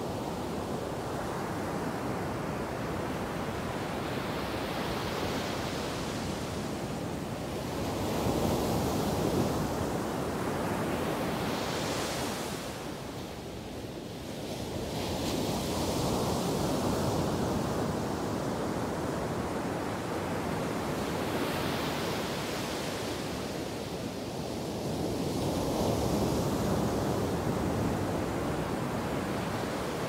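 Ocean waves breaking on a beach: a constant rushing wash of surf that swells three times as waves crash, roughly every eight to nine seconds.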